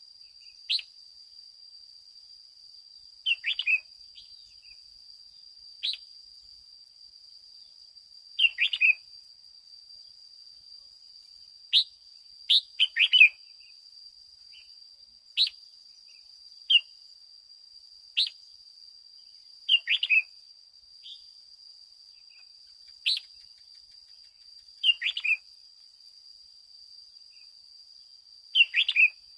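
Red-whiskered bulbul calling: sharp single chirps and short two- or three-note phrases, repeated every couple of seconds over a steady high whine.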